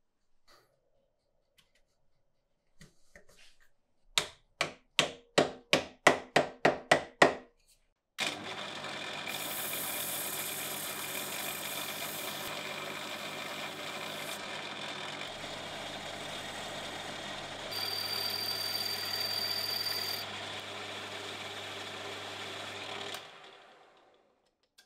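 A quick series of about a dozen ringing knocks that grow louder, then a small lathe running with abrasive paper held against a steel cap on a wooden mandrel: a steady motor hum under a rubbing hiss, louder with a high whine for a couple of seconds, until the lathe winds down and stops.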